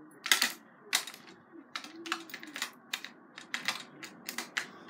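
Irregular clicks and light clatter of a mathematical set's pieces (set squares, protractor, ruler, small pencil) being handled.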